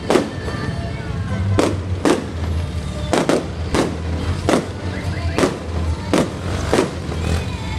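Aerial fireworks bursting in quick succession, about a dozen sharp bangs at uneven intervals, over music with a steady low beat.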